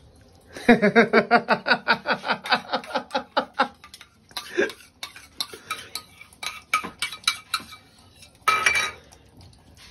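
A metal spoon stirring quickly in a steel bowl, clinking about six times a second with the bowl ringing for a few seconds. Then slower, scattered clinks of spoon on steel, and a short scrape near the end.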